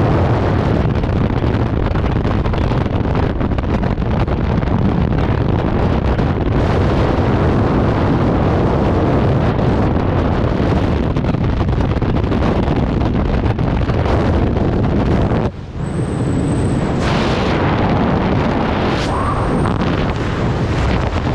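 Wind rushing over the camera microphone during skydiving freefall: a loud, steady rush that dips briefly about two-thirds of the way through. A high, thin steady tone sounds twice near the end.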